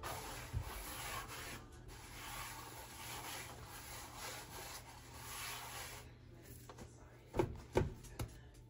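Hand spreading flour over a countertop work surface: a soft rubbing, brushing sound that swells and fades for about six seconds, then two short knocks near the end.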